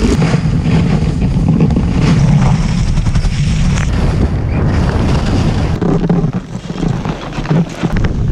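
Wind rushing over the microphone of a skier's action camera, a loud low rumble, with skis hissing and scraping over packed snow on a downhill run. It eases briefly about six seconds in.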